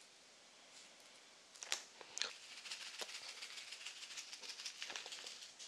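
Small plastic topping packet shaken over a plate of noodles: a couple of clicks about a second and a half in, then a run of faint small crackles until near the end.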